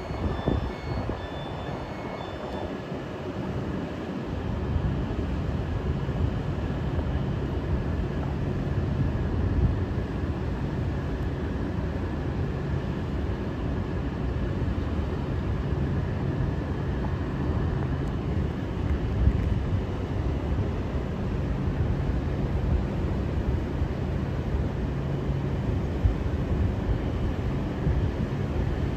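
Trenitalia Rock double-deck electric train standing at the platform, its onboard equipment running with a steady low hum over a constant rumble.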